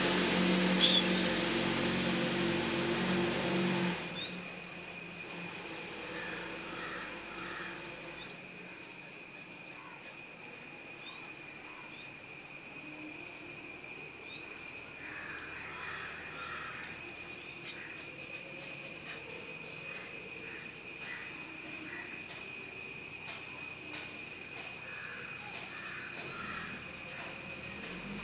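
Steady high insect drone, several tones held throughout, with a few short bird chirps scattered over it. A low machine hum underneath cuts off suddenly about four seconds in.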